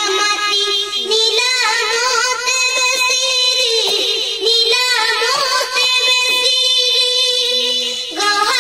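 A young girl singing an Assamese song unaccompanied in a high voice, holding long notes with a wavering pitch.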